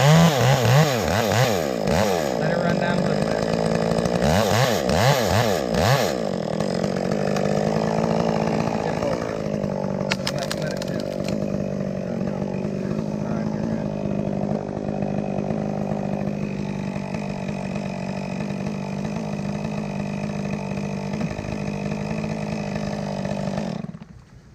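Chainsaw revving up and down several times, then held at full throttle in one long steady cut through the maple wood, stopping abruptly near the end.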